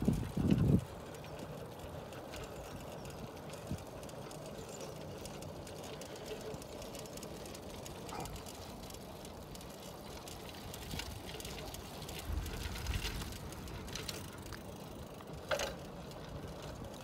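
Bicycle being ridden along a paved path: steady rolling noise with a few rattling clicks and knocks from the bike, the sharpest about fifteen seconds in.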